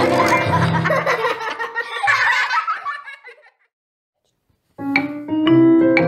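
Ragtime piano music that fades out about three and a half seconds in; after about a second of silence a solo ragtime piano starts up again.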